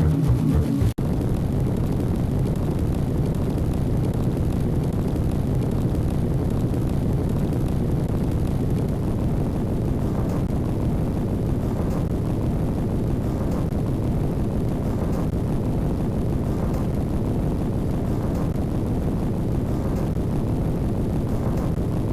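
Music cuts off abruptly about a second in. It is followed by a steady, loud, low rumbling roar.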